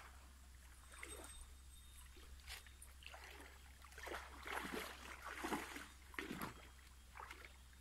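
Pond water sloshing and splashing around a person wading waist-deep while handling a cast net, in irregular surges that are loudest from about four to six and a half seconds in.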